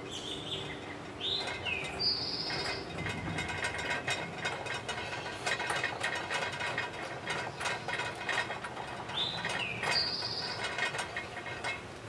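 Light metallic clicking and scraping, many small ticks in a row, as a decorative nut is turned by hand onto a porch light fixture's mounting bolt.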